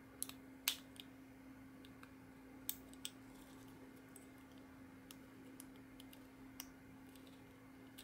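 Small, sharp clicks and taps from hands handling a Marey tambour's metal capsule while fitting a membrane over it. There are several in the first second, two more about three seconds in and a single one later, over a faint steady hum.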